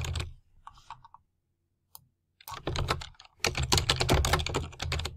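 Typing on a computer keyboard: a quick run of keystrokes at the start, then a pause with a single keystroke, then a longer quick run of keystrokes that stops about half a second before the end.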